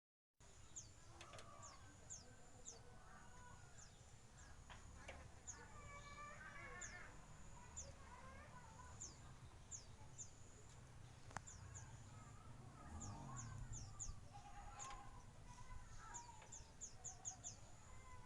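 Small aviary birds chirping: many short, high, falling chirps repeated again and again, with some lower calls among them, setting in just after the start.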